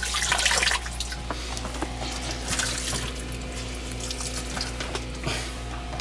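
Water splashing and trickling as a soaked rag is squeezed and wiped around a sump pump sitting in its water-filled pit, loudest in the first second, with a steady low hum underneath.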